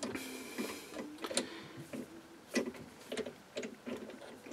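Scattered light metallic clicks and taps as the three-jaw chuck of a Myford ML7 lathe is handled and a chuck key is fitted to loosen its jaws.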